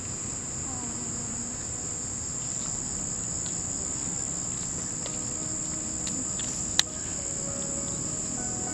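Crickets chirping in a continuous high trill, with a single sharp click about seven seconds in.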